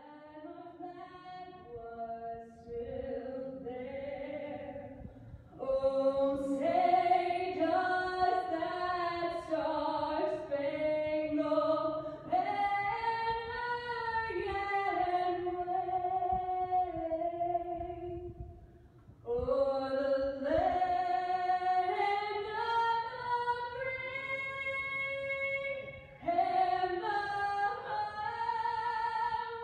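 Slow vocal music: several voices singing together in harmony, holding long notes. It starts softly and swells about five seconds in, with short breaks between phrases near 19 and 26 seconds.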